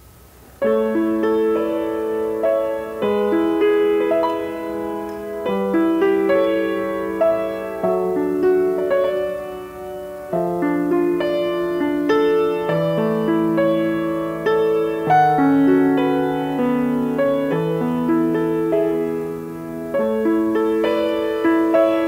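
Grand piano played solo: a slow, gentle piece of held chords that change every second or two, starting about half a second in.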